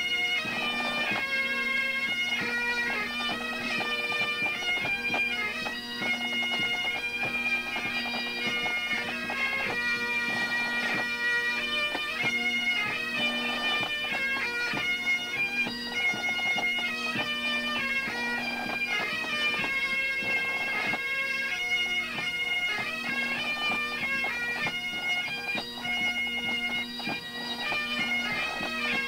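Pipe band's bagpipes playing a lively tune over their steady drone.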